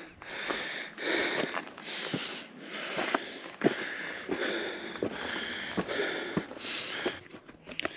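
A man breathing hard and fast, a steady rhythm of loud in-and-out breaths about one a second, with footsteps ticking in between: out of breath on an exhausting uphill climb.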